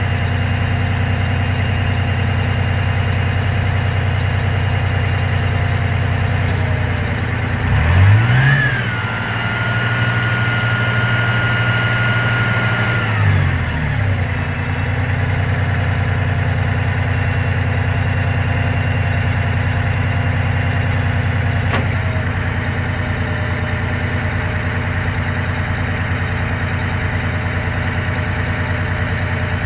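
Aerial ladder fire truck's engine running steadily. About eight seconds in it revs up and holds a higher pitch with a whine for some five seconds, then drops back to idle, while the hydraulic stabilizer outriggers are extended and lowered. A single sharp click sounds a little over twenty seconds in.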